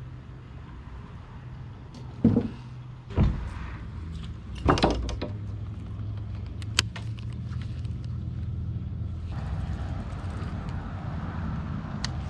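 A boat motor hums steadily and low. Three heavy thumps about two, three and five seconds in, and a couple of sharp clicks, come from handling on board.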